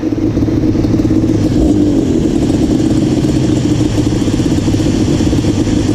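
Yamaha Banshee 350's twin-cylinder two-stroke engine idling steadily.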